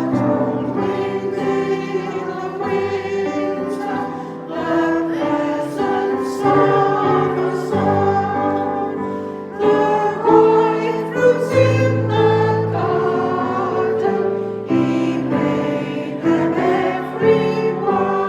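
Voices singing a hymn together with instrumental accompaniment: sustained chords that change every second or so.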